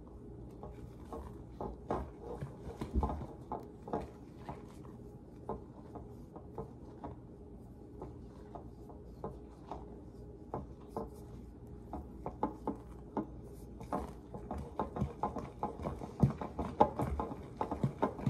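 Hand stirring of a thick, fluffy whipped-topping dip in a large glass mixing bowl: the utensil gives irregular soft knocks and scrapes against the glass, coming faster in the last few seconds.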